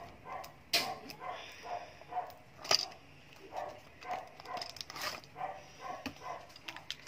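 A small cardboard toy-car box being handled and opened and a die-cast car pulled out in its plastic bag: a few sharp clicks and rustles, the loudest about a second and about three seconds in. Behind it, a run of short animal calls, two to three a second.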